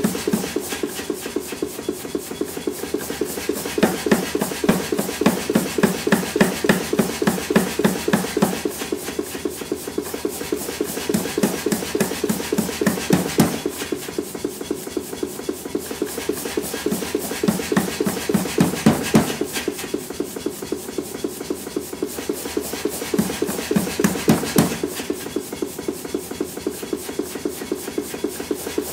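Rapid, evenly spaced hammer blows on a hot EN9 steel hammer head over the anvil, several strikes a second.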